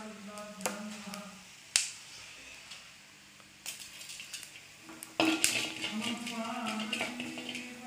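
Kitchen clatter: a sharp clink of a utensil against the stove or clay pot a little under two seconds in, and a few lighter knocks. From about five seconds in there is a crackling hiss, with a voice chanting in long held notes in the background.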